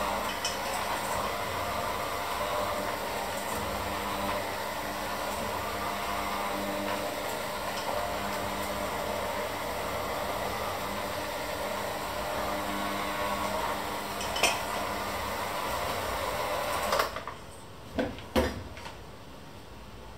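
Electric hand mixer with dough hooks running steadily in a stainless steel bowl of dough. It cuts off near the end, followed by two sharp knocks.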